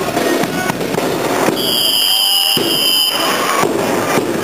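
Parade street noise: the tramp of a troop's boots marching in step over the crowd's hubbub, with a shrill whistle-like tone held for about a second and a half in the middle.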